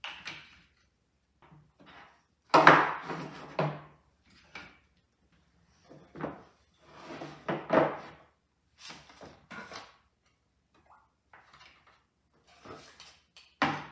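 Handmade wooden chuck box and camping gear being handled and set down on a wooden tabletop: a series of separate wooden knocks, bumps and clatters, the loudest cluster about two and a half seconds in, with quieter bumps later.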